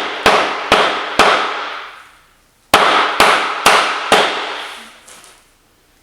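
Hand hammer blows on a hard surface during demolition, about two a second, each ringing out with a long echoing decay: three blows, a short pause, then four more.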